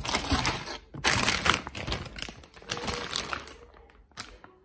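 Clear plastic bag crinkling and rustling as it is handled and pulled out of a cardboard box, in irregular crackling bursts that die down about three and a half seconds in, followed by a sharp click near the end.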